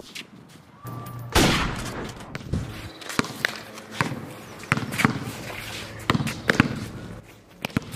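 Basketball bouncing on an asphalt court as it is dribbled: a string of sharp, irregularly spaced bounces. A louder bang comes about a second and a half in.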